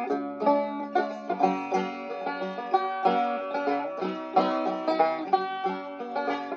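Background music: fast plucked banjo in a bluegrass or country style, with quick repeated notes over a steady rhythm.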